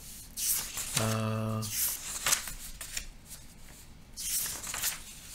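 Sheets of printed paper being leafed through and rustling, in several bursts of crackling.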